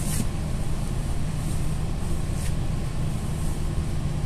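Golden Dragon city bus's engine idling while the bus stands still, heard from inside the cabin as a steady low rumble with a constant hum.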